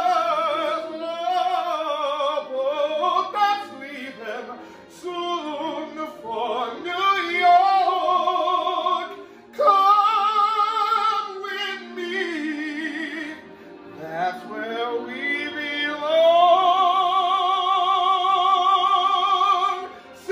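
A tenor singing in operatic style with a strong vibrato, phrases rising and falling, then holding one long note for the last few seconds.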